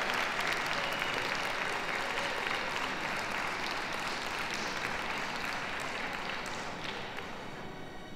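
Ringside audience applauding, a dense patter of many hands clapping that gradually dies away near the end.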